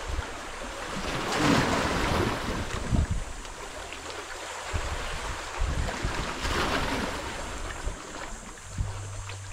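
Sea waves washing in, two louder surges about a second and a half in and again near seven seconds, with wind rumbling on the microphone.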